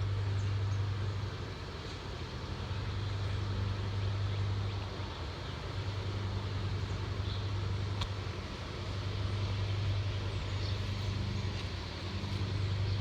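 A steady low mechanical hum, like an engine or compressor running, that swells and eases slowly every few seconds, with a single faint click about eight seconds in.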